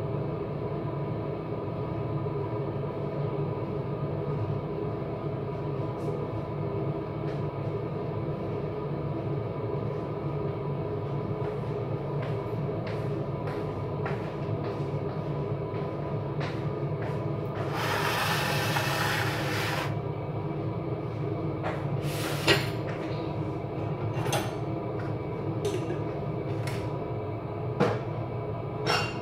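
A steady machine hum, like a kitchen fan or appliance, runs throughout. About two-thirds of the way in there is a two-second rush of hiss, and near the end a drawer is opened with a few sharp clicks and knocks.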